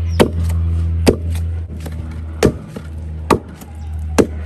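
Fufu being pounded with a wooden pestle in a mortar: five heavy thuds, one every second or so, over a steady low machine hum.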